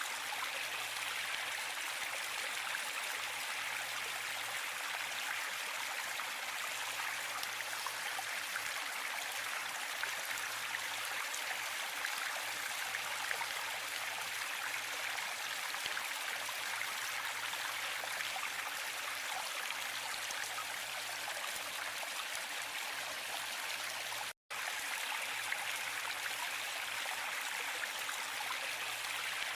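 Waterfall: a steady rush of falling water, an even hiss with little low end. It cuts out for an instant about three-quarters of the way through, then resumes unchanged.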